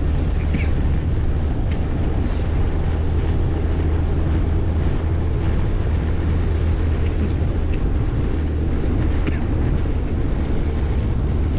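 Steady low rumble and rushing noise of travel along a road, with a few faint clicks now and then.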